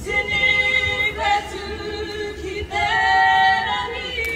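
Kapa haka group singing together in a choir of voices, holding long sustained notes with short breaks between phrases.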